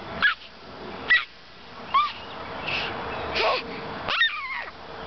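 A baby squealing and shrieking with delight while being swung: five short, high-pitched squeals about a second apart, each falling in pitch, with a breathy laugh just before the last.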